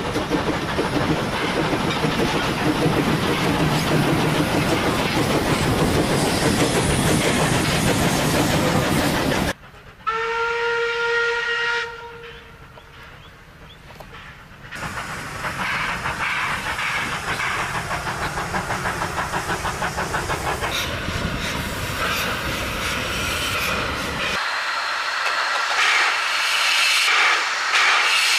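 Two coupled steam locomotives working hard past close by, their exhaust chuffing fast and loud with the carriages rolling behind. About ten seconds in a steam whistle blows one steady note for about two seconds, then the train is heard working again, quieter and farther off, with hiss and rail clatter.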